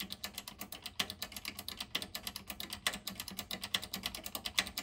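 Push-button speaker selector switches of a Sony STR-D311 receiver clicking as they are pressed in and out rapidly, about ten clicks a second, to work contact cleaner through their contacts.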